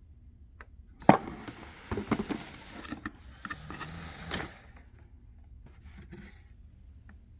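Cardboard box of a sous vide cooker being opened and its packaging handled: a sharp knock about a second in, then a few seconds of scraping and rustling, then a few faint clicks.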